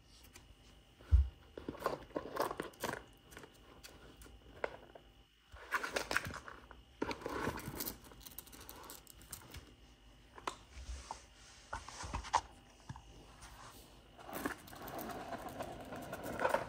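Cardboard tissue box rustling and scraping on a hard floor as guinea pigs push into it and hands pull at one of them, with scattered crackles and a dull thump about a second in.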